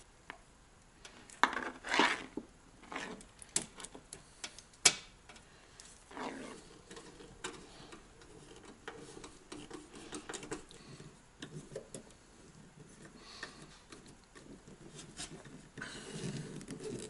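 Handling noise of an insulated 10-gauge copper ground wire being pulled and fed along a sheet-metal wireway: scattered clicks and taps of wire and hand against metal, the sharpest about five seconds in, then stretches of rustling and scraping.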